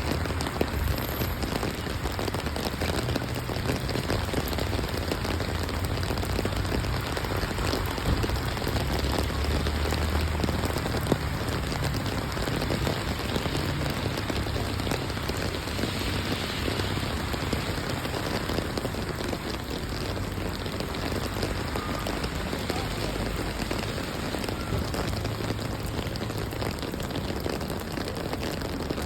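Steady rain falling on hard surfaces, a dense even hiss of drops, with a low rumble underneath.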